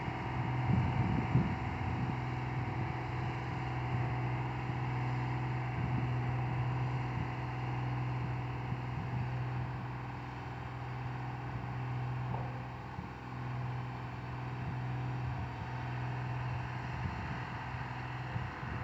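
Diesel engine of a Volvo single-drum road roller running steadily as it compacts soil, a constant drone, with wind buffeting the microphone about a second in.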